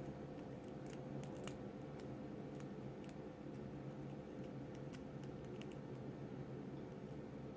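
Faint, irregular light clicks of a lock pick and tension wrench working the pins of a brass-bodied Stanley Kwikset series padlock, over a steady low hum.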